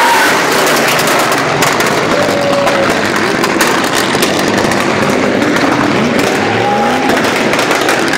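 Drift car sliding with its engine revving hard and its tyres squealing on asphalt, with many sharp pops through the middle.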